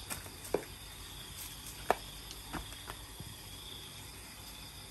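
Steady high trilling of night insects, with about five light knocks and clicks scattered through as things are handled.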